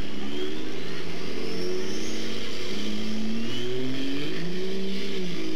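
A diesel pickup truck's engine running hard under load while it pulls a weighted sled, its pitch stepping up and down as the revs change. A faint high whine rises above it.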